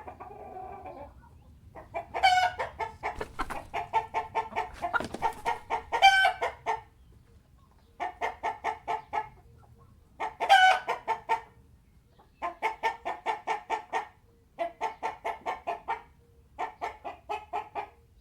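Chickens clucking in repeated runs of quick, evenly spaced clucks, about six bouts with short pauses between them. A few louder calls stand out within the runs.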